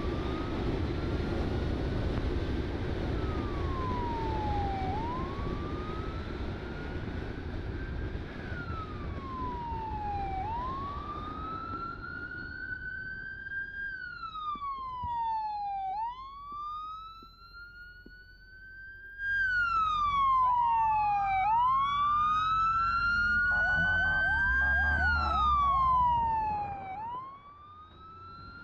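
Police motorcycle siren wailing, its tone rising slowly and falling faster, about once every five seconds. Wind rush on the microphone covers the first half while the bike is moving. From about twenty seconds in a second, louder siren overlaps it for several seconds.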